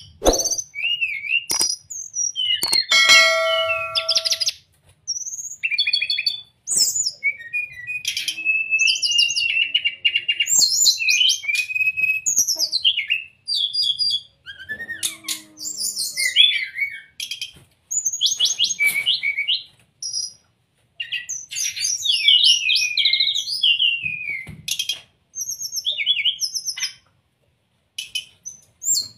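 Brown-chested jungle flycatcher (sikatan rimba dada coklat) singing: varied rapid chirps, trills and sliding whistled phrases in short bursts with brief pauses.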